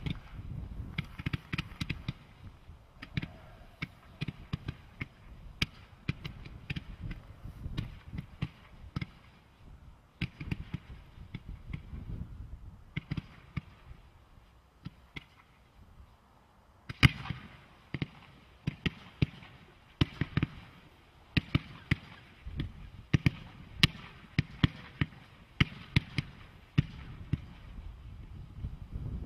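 '21st Century Barrage' consumer firework cake firing shot after shot: a rapid, irregular run of sharp pops and thuds as stars and comets leave the tubes. The firing thins out about halfway through, then resumes with one loud bang and a dense run of shots.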